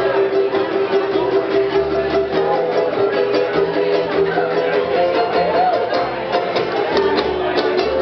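Ukulele ensemble strumming a slow song over a plucked upright bass, played live.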